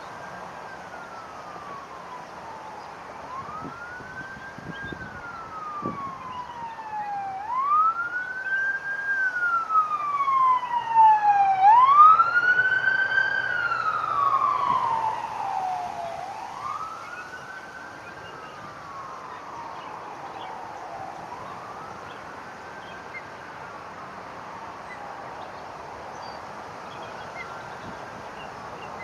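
A wailing siren, its pitch rising and falling slowly about every four to five seconds. It grows louder toward the middle, then fades away as it passes.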